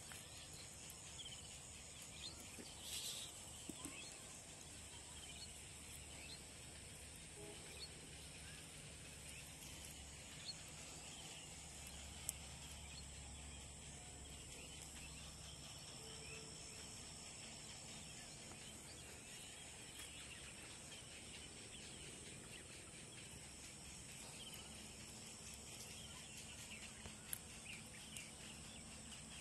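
Faint outdoor ambience: a steady high-pitched insect drone with scattered short bird chirps and a few faint clicks.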